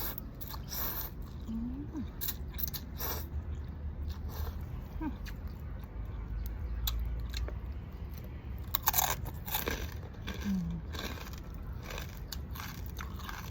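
Close-up eating sounds: a person crunching and chewing a bowl of pork boat noodles topped with crispy fried pork fat, with many short irregular crunches and clicks.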